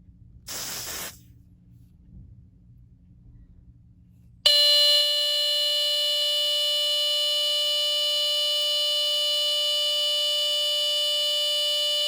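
A brief hiss of aerosol smoke-test spray, then about four seconds later the Sears 57002 smoke alarm's piezo horn goes off with a loud, shrill, steady tone that holds without a break: the alarm has sensed the test smoke.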